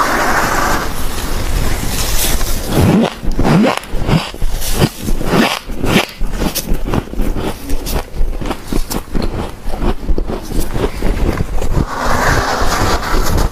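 Chunks of dry humidifier frost crunching and squeaking as they are bitten and squeezed by hand: many sharp crunches in quick succession, with a few short squeaks about three seconds in.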